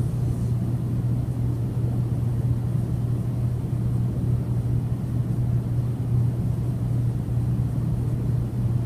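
A steady low hum with faint background noise, unchanging throughout.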